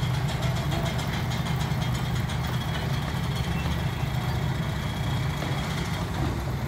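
Engine of the construction machinery running steadily, a low even hum with a fast regular pulse, while it drives the material hoist carrying concrete to the roof.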